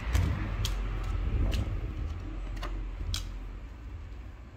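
Playing cards, tucked between tyre and rim as spray shields, pulled out one after another, giving about five sharp clicks in the first three seconds over a low rumble of handling noise.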